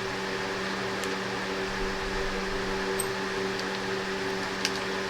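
A steady mechanical hum, like a fan or motor running, with a few faint light clicks.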